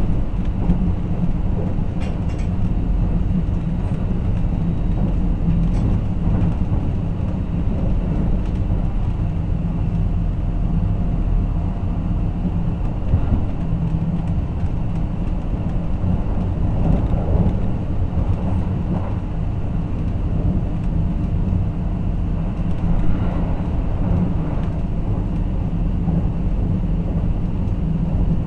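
Cabin noise of a Kintetsu 23000-series Ise-Shima Liner electric limited express under way: a steady low rumble with faint clicks now and then.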